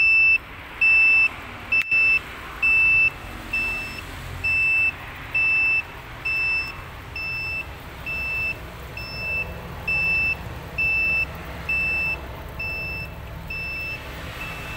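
Egg incubator's electronic controller beeping repeatedly, short even beeps at one high pitch about once a second, over a low steady hum. A single click sounds about two seconds in.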